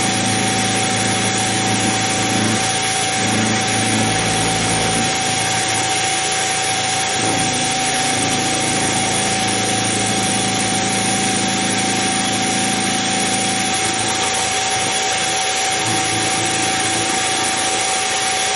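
Harbor Freight mini mill running, its end mill cutting a radius into metal links turned on a rotary table. A steady motor whine, with the cutting noise underneath coming and going as the cut is taken.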